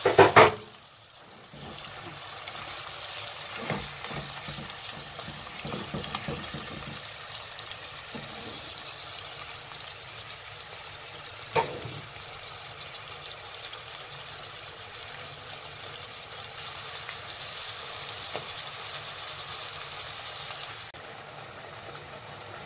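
Chicken pieces, onion and spices frying in oil in a cooking pot, giving a steady sizzle. A few sharp knocks break through, the loudest right at the start and another sharp one about halfway through.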